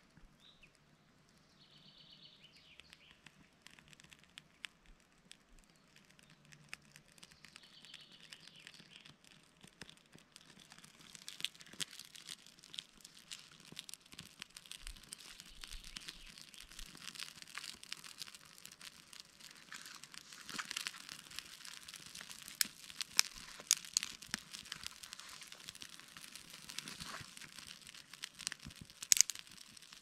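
Small campfire of split wood and kindling catching after being lit with a match, crackling quietly at first and then more and more densely, with a few sharp pops in the second half.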